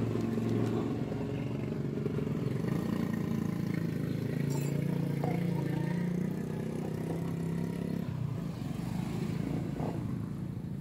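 Small motorcycle engine running steadily at idle, its even note shifting slightly about eight seconds in.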